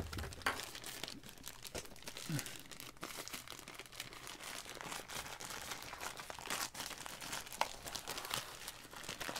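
Plastic packaging crinkling and rustling as items are pulled out of a drone carrying bag during unboxing, with scattered light clicks and knocks.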